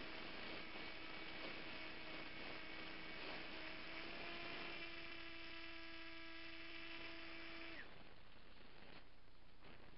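Model flying wing's motor and propeller running with a steady whine, heard from a camera mounted on the airframe. The pitch steps up slightly about four seconds in. The motor cuts out near the end, its pitch falling away and leaving only airflow hiss.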